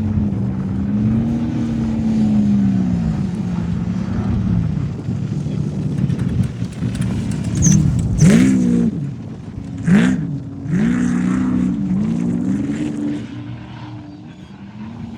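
Off-road race vehicle engines running hard, their pitch rising and falling as the throttle is worked. There are sharp revs about 8 and 10 seconds in, and the sound eases off near the end.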